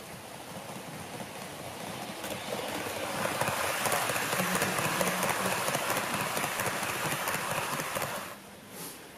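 HO-gauge model of a JR Hokkaido Super Hokuto diesel express running past on the layout track: a steady rushing noise of wheels on rail and motor that builds from about two seconds in, is loudest for several seconds, and drops off sharply near the end.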